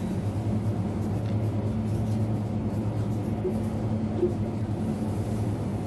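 Steady low mechanical hum of a convenience store's background, with no sudden sounds.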